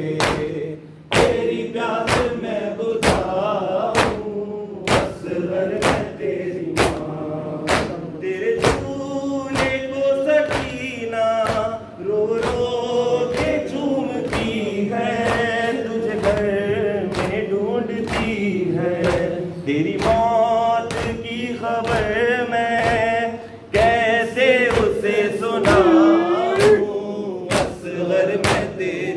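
A group of men sings a noha, a Muharram lament, in unison. Over it comes matam: many palms slapping chests together in time, about one strike a second.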